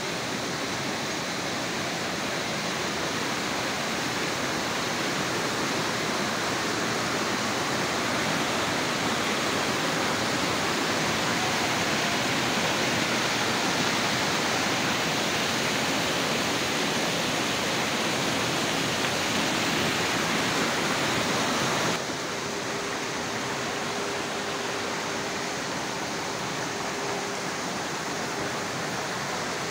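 A mountain stream rushing over boulders in small waterfalls and cascades, a steady white-water rush. About two-thirds of the way through it drops suddenly to a somewhat quieter level.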